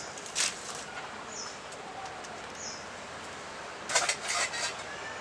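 Steel utensils in a carried basket clinking, with a short clatter of metal dishes about four seconds in. A bird gives short high chirps every second or so.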